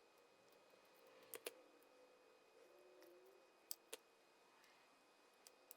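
Mostly quiet, with light metal clicks, two quick pairs and one more near the end, as the intermediate shaft is worked into the Dana 18 transfer case.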